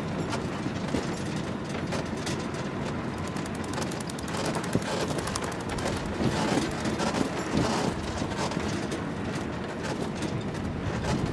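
Open safari 4x4 driving along a rough sandy track: a steady engine and wind rumble with dense, rapid rattling and knocking from the bouncing vehicle.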